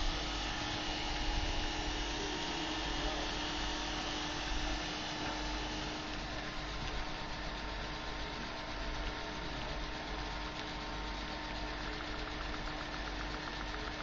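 Biomass gasifier furnace plant running: a steady mechanical drone with a constant hum, likely from its air blower and machinery. A faint, fast, regular ticking joins about twelve seconds in.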